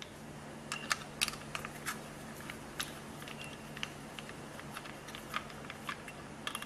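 Small irregular clicks and ticks of an aluminium heat sink being rocked back and forth in a circuit board and prodded with a thin tool to work it loose, over a faint steady hum.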